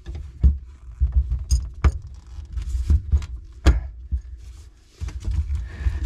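Brass pressure reducing valve and PEX pipe being handled and pushed into place: a handful of sharp clicks and light knocks over a low rumble.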